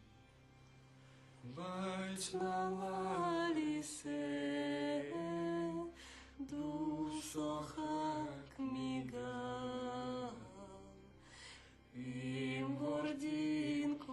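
Slow, chant-like singing in long held notes. It starts about a second and a half in and breaks off briefly twice, about six seconds in and again near eleven seconds.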